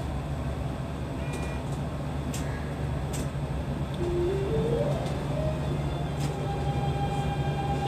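The Siemens GTO inverter ('Doremifa inverter') of a Keikyu New 1000 series train as it starts off: about four seconds in, its motor whine climbs in a stepped musical scale, then holds a steady higher tone near the end. Under it runs a steady low hum, with a few sharp clicks before the scale begins.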